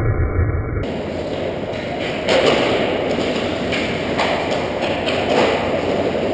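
Ice hockey play close to the goal: skate blades scraping the ice with sharp knocks of sticks and puck, three standing out at about two, four and five seconds in.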